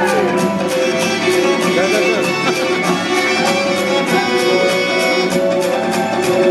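Circassian folk dance music playing loud, with sustained melody lines over a steady percussive beat.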